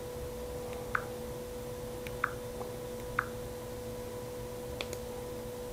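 Galaxy S6 touchscreen being tapped while browsing its menus: a handful of short, soft ticks, irregularly about a second apart, over a steady faint hum.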